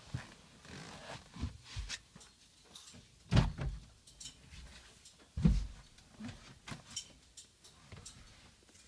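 A series of clicks and knocks with two heavier thumps, about three and a half and five and a half seconds in; no engine is heard running.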